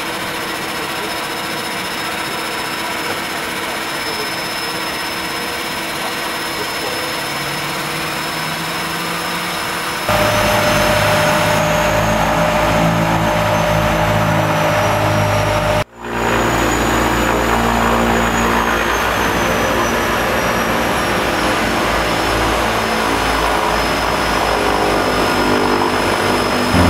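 Seaplane's propeller engines droning steadily, heard from inside the cabin, with a high turbine whine. About ten seconds in the engine noise suddenly grows louder and deeper, and the high whine slides slowly in pitch. About sixteen seconds in there is a brief drop-out.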